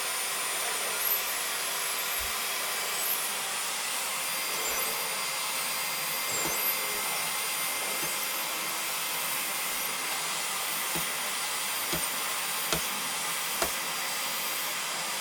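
Household vacuum cleaner running steadily, a constant whooshing hiss with a faint high whine, with a few short light knocks in the second half.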